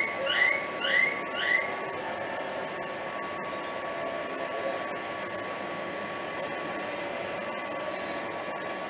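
A bird gives four quick rising chirps, about half a second apart, in the first two seconds, over a steady background hiss that runs on alone afterwards.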